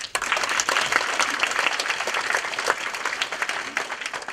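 Audience applauding, breaking out suddenly and tapering off near the end.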